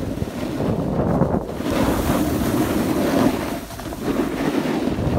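Wind rushing over the microphone with the hiss and scrape of a snowboard sliding over packed snow during a run downhill, swelling and easing, with a brief lull a little before the end.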